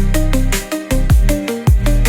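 Electronic background music with a fast drum beat, deep falling bass notes and a short repeating synth melody.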